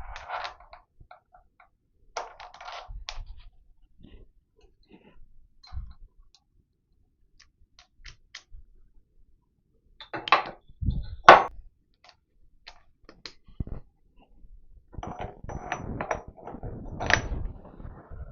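Metal parts of a milling machine's leadscrew handwheel assembly being handled and fitted: scattered clinks, taps and scrapes, with one sharp knock about eleven seconds in and a denser run of clatter near the end.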